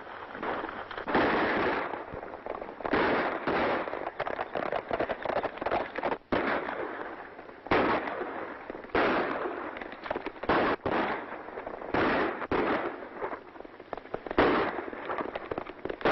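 Gunfight on an old film soundtrack: a rapid, continuous run of gunshot cracks, with louder shots every second or two.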